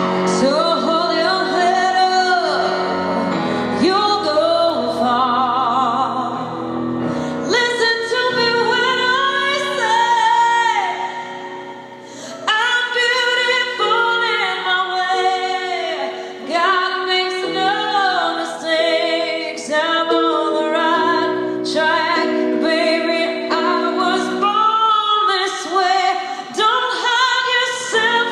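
A woman singing with vibrato and long held notes over sustained piano chords, with a brief lull about twelve seconds in.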